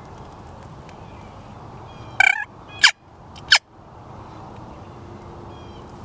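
Wild turkey calling: a short rough call about two seconds in, then two sharp clucks that fall steeply in pitch, under a second apart. Faint chirps of small birds sound in the background.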